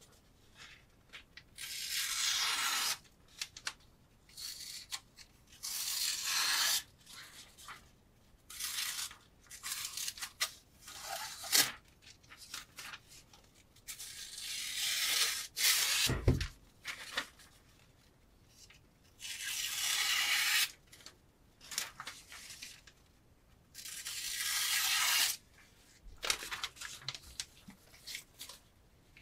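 A chef knife's blade slicing through paper: a series of cutting strokes, each about a second or two long, with short pauses and smaller scrapes between. A low knock sounds about halfway through.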